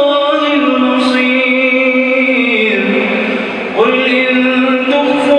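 A man's solo Quran recitation, chanted melodically in long held notes. The pitch slides down through the middle of the phrase and fades briefly, then a new phrase begins a little before four seconds in.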